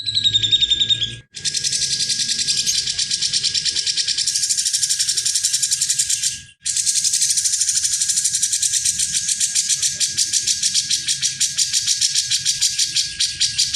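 Cucak jenggot (grey-cheeked bulbul) giving a fast, rattling chatter of many short notes a second, with brief breaks about a second in and again after six seconds.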